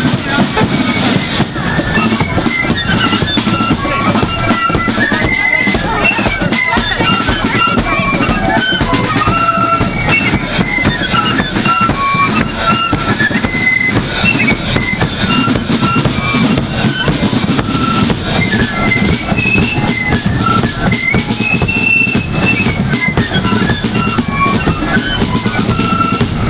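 Marching flute band playing: flutes carry a quick, bouncing melody over continuous snare and bass drumming.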